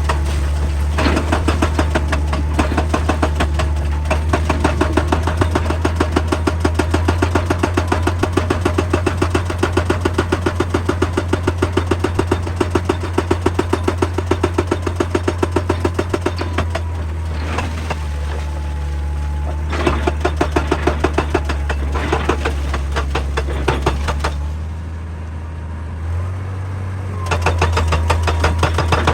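Excavator-mounted hydraulic rock breaker hammering in rapid, even blows over the steady drone of the excavator's engine. The hammering stops for a few seconds, leaving the engine alone, then starts again near the end.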